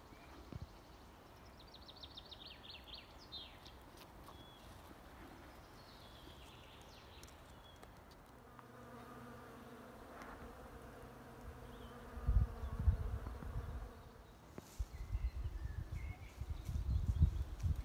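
A bee buzzing close by for several seconds in the middle, a steady hum. A small bird gives a rapid high trill about a second and a half in. From about twelve seconds in, low rumbling buffets hit the microphone, louder than the bee.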